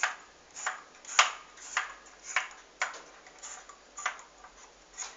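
Abacus (soroban) beads clicking against the frame as the upper beads are pushed up to reset the abacus to zero: about ten sharp clicks at a steady pace of nearly two a second.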